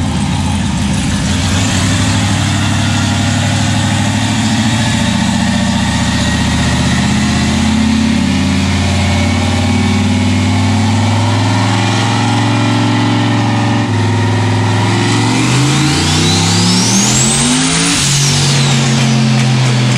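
Turbocharged V8 in a Corvette on a chassis dyno, running steadily, then a short first-gear pull. About 15 seconds in, the revs climb sharply for about three seconds with a rising turbo whistle, then fall away as the throttle is let off.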